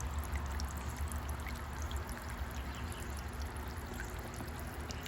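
Solar fountain pumps spraying water that splashes steadily into the bird bath basins, with a steady low rumble underneath. The pumps are running on their backup batteries, with no sun.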